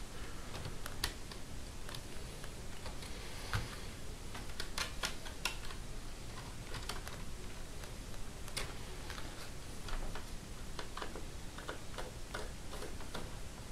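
Faint, irregular small clicks and ticks of a small screwdriver backing tiny screws out of a laptop's screen frame, with light handling of the plastic lid.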